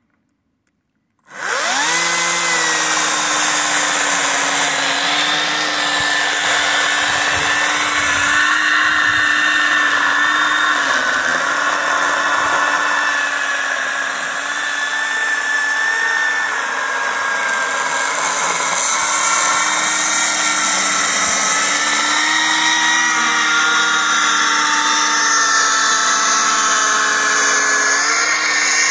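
Kobalt 40-volt cordless electric chainsaw switching on about a second in and cutting steadily into a downed oak log, its motor a steady whine whose pitch dips slightly now and then as the chain bites.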